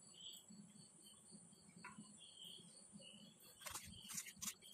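Near silence, then about three and a half seconds in a knife starts chopping okra on a wooden cutting board: a quick run of sharp cuts, about four a second.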